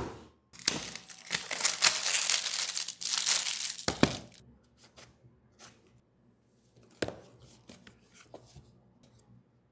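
A cardboard gift box for a hardware wallet is set down on a wooden desk with a knock. It is followed by about three seconds of tearing, crinkling packaging noise, then a couple of sharp clicks and light scrapes as the box is handled and opened.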